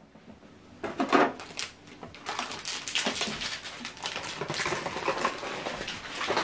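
HP DeskJet 2721e inkjet printer's internal mechanism running just after its cartridge access door is closed. It clicks and rattles in a fast, even run as the printer resets with the new cartridges.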